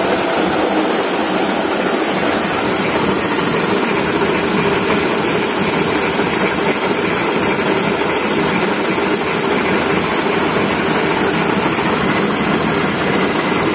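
Small toilet roll paper rewinding machine running at speed: a steady, even mechanical noise as the tissue web feeds over its rollers.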